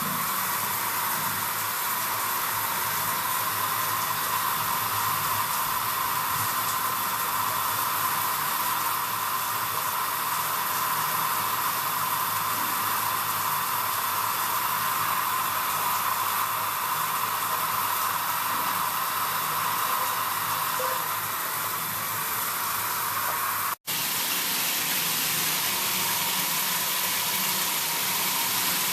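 Waterpik NSL-653 handheld shower head spraying water: a steady, even hiss that breaks off for an instant near the end. After about six months of use its pressure has gone soft.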